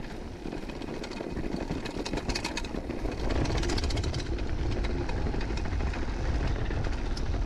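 Downhill mountain bike rolling down a gravel track: tyres crunching over loose stones, with scattered clicks and rattles from the bike, getting louder about three seconds in.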